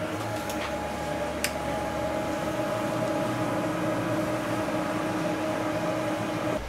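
Steady machine hum with a fan-like hiss and a few fixed tones, with a couple of light clicks in the first two seconds.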